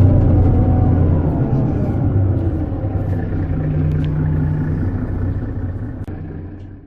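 Mercedes-Benz Citaro G articulated bus with a ZF Ecomat 6HP 502C automatic gearbox, its diesel engine running at low, steady revs with a deep hum. The sound slowly dies away and fades out near the end.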